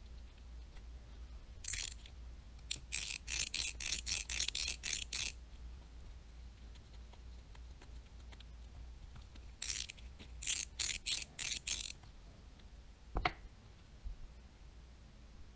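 Daiwa Tatula 100 TWS baitcasting reel's mechanism clicking in quick ratchet-like bursts, about nine in the first group and six in a second group a few seconds later, as the reassembled reel is worked by hand. A single knock follows near the end.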